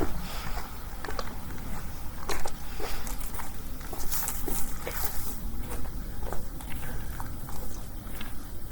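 Footsteps of a person walking, irregular short steps over a low steady rumble, with a brief hiss about four seconds in.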